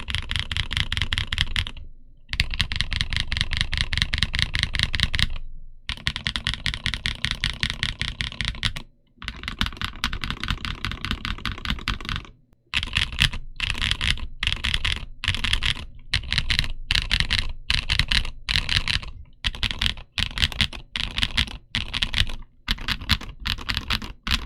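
Fast typing on an Omnitype Bauer Lite mechanical keyboard with MilkBone frankenswitches (Milky brown housings, Halo Clear tactile stems, 62.5 g springs) and PBT Cherry-profile keycaps: rapid keystrokes in long runs with short pauses, then in shorter bursts with brief gaps between them in the second half.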